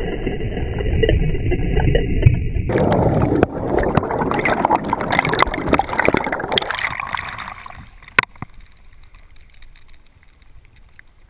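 Churning water and rushing bubbles heard from under water, loud and crackling, just after a person plunges into a lake. Near the end a sharp click comes, and the noise falls away to a faint hiss as the camera breaks the surface.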